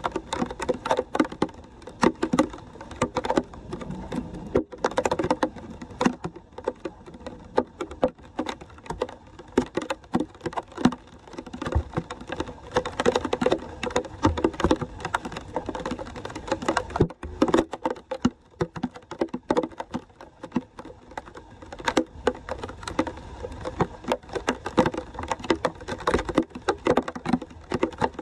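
Floodwater splashing and gurgling as it drains through a street storm drain grate partly clogged with leaves and plastic, a dense patter of small splashes.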